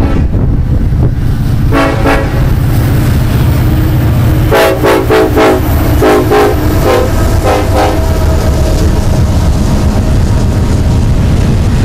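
Norfolk Southern diesel freight locomotive passing close by, sounding its multi-chime air horn several times: one short blast about two seconds in, then a longer blast and a few shorter ones. A heavy rumble of the engine and the rolling stack cars runs underneath.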